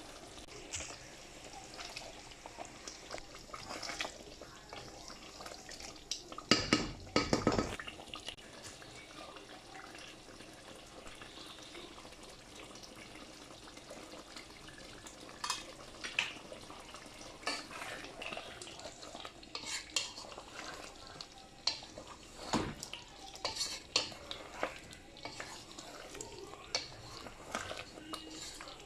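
Palak chicken curry simmering and bubbling in a pot on a gas burner, with scattered clacks and knocks of a utensil against the pot. The loudest knocks cluster about seven seconds in, and another comes past the twenty-second mark.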